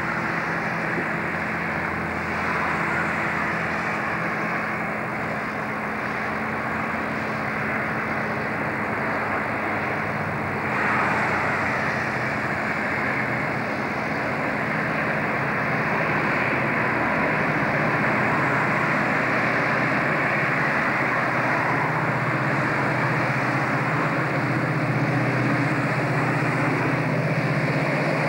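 Three 81 class diesel-electric locomotives, each with an EMD two-stroke V16, hauling a coal train as they approach: a steady low engine drone under a constant rushing noise, growing a little louder over the second half.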